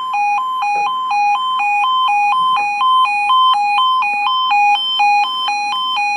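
Level crossing audible warning: an electronic two-tone alarm switching steadily between a lower and a higher tone about two and a half times a second, sounding as the crossing closes for an approaching train.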